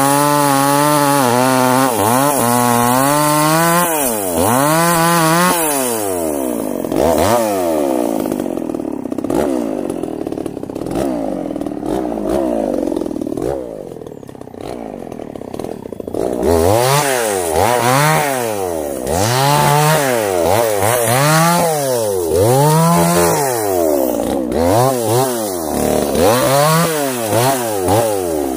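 Two-stroke Stihl chainsaw cutting through a sengon log at steady high revs, then revved up and down over and over, one rise and fall about every second. The engine is quieter for several seconds in the middle before the revving picks up again.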